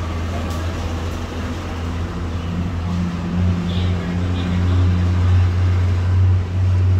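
A low, steady motor rumble that grows louder about three seconds in.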